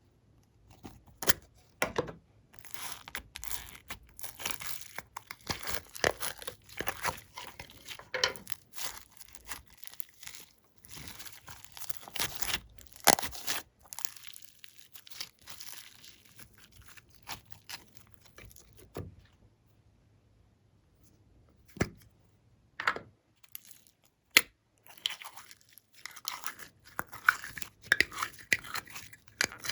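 Glossy slime being squished and stretched by hand with crunchy add-ins, making dense, irregular crackling, clicking and squelching. The sound pauses briefly a little past the middle, gives a few single sharp snaps, then the crackling picks up again near the end.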